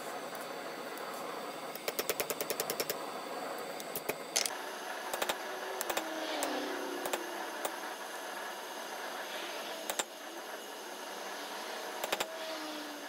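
Hammer striking a chisel on red-hot steel on an anvil, cutting the barbs of a forged feather, over a steady hiss. A quick run of light blows about two seconds in is followed by single blows spaced a second or more apart.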